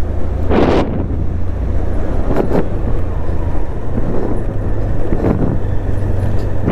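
Honda Livo's 110 cc single-cylinder four-stroke engine running steadily on the move, a constant low hum under rushing ride noise. A brief louder rush of noise comes just under a second in.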